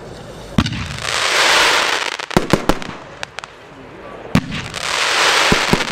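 Evolution The Branco 30 mm fireworks cake firing two shots about four seconds apart. Each shot is a launch thump followed by a loud crackling hiss from the effect for a second or so, then a quick run of sharp cracks.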